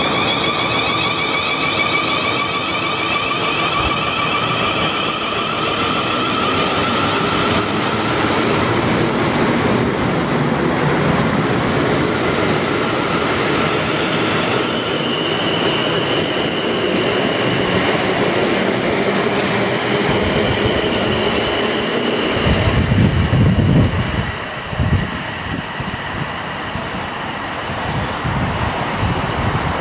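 A South Western Railway Siemens Desiro electric multiple unit accelerates away, its traction motors whining in several tones that rise steadily in pitch, over wheel and rail noise. From about 15 s a steady high whine takes over, and after about 22 s uneven low rumbling comes in as the next unit approaches.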